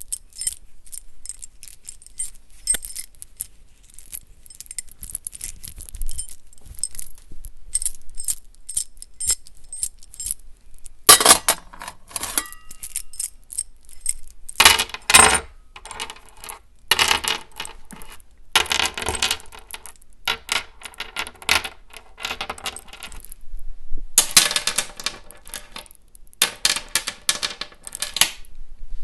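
Small brass chain clinking and rattling: scattered light clinks for the first ten seconds or so, then several denser bursts of rattling a second or two long each.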